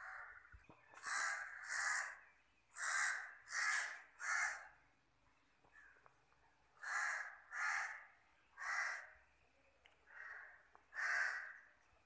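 A crow cawing repeatedly: about ten caws in runs of two or three, with short pauses between the runs.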